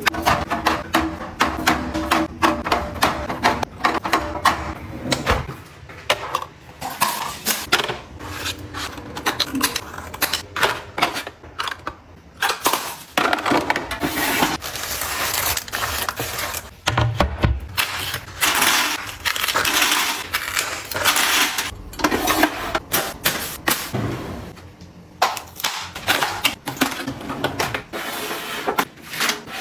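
A long run of close-up clicks, taps and knocks from items being handled and set down: plastic water bottles placed into a metal pull-out drawer, and a small drawer slid open.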